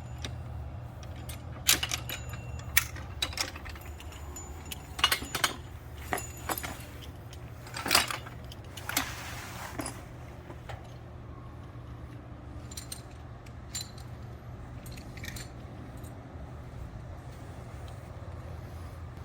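Metal fall-protection hardware clinking and rattling as it is handled and unclipped from the rope, in scattered sharp clicks that are densest in the first half and sparse later, over a steady low hum.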